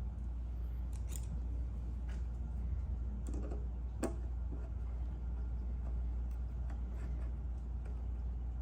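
A few light clicks and taps from small parts and screws being handled while the ring is fitted to the gas cap, over a steady low hum.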